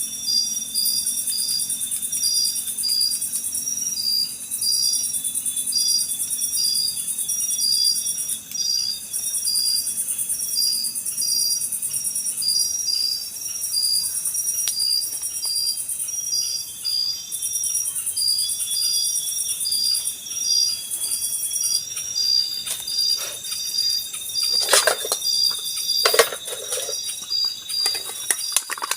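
Night insect chorus: a continuous high buzzing with a cricket-like chirp repeating about twice a second. A few sharp clattering knocks come near the end.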